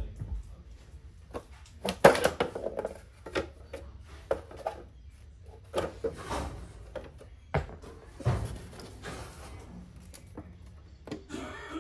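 Irregular knocks, clunks and scrapes as the housing cover of a Karcher HD 585 pressure washer is lifted off and handled, with the sharpest knock about two seconds in.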